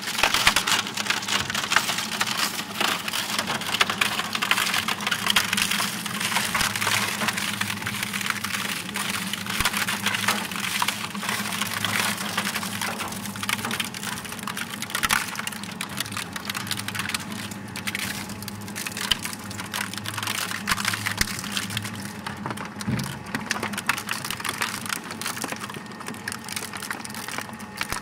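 Double-shaft scrap shredder's interlocking cutter blades crushing and tearing mixed plastic and metal scrap: a dense, continuous cracking and snapping over a steady motor hum. The cracking thins out near the end as the hopper empties.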